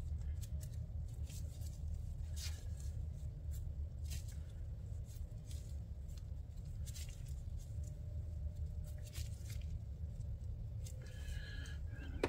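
Scattered light clicks and scrapes of metal hand tools being handled on an engine's cylinder head as a thread tap and tap handle are set into a head port, over a steady low hum. There is a short squeak near the end.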